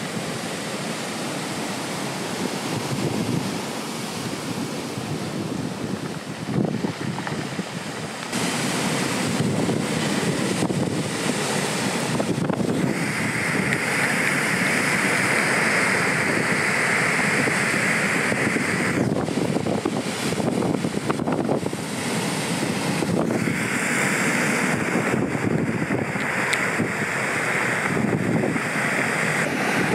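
Ocean surf breaking, with wind gusting across the microphone: a steady rushing noise that grows louder about eight seconds in.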